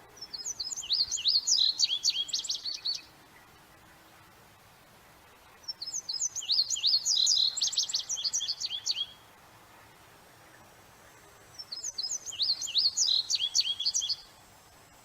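Indigo bunting singing three songs, each about three seconds of quick, high, sweeping notes, many given in pairs, with pauses of a few seconds between songs.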